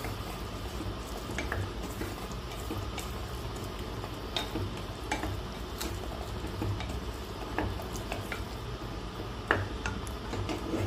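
Wooden spatula stirring a thick jackfruit and coconut curry in a pressure cooker pot, with scattered scrapes and taps against the pot, the sharpest about nine and a half seconds in. A steady low hum runs underneath.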